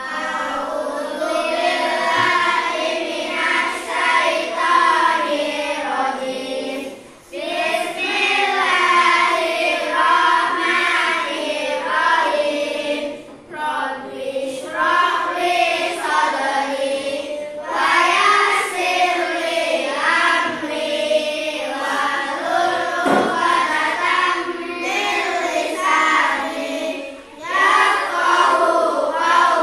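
A class of children chanting a recitation aloud in unison from their books, in long sung phrases with brief pauses for breath about a quarter, halfway and near the end.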